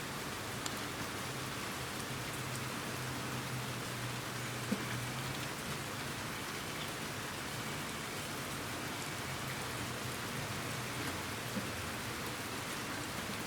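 Steady rain falling, an even hiss, with a couple of sharper single taps, one about five seconds in and one near the end.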